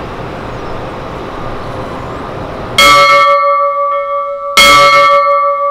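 Steady airport background noise, then two loud bell-like strikes, the first about three seconds in and the second about a second and a half later, each ringing on with several steady tones.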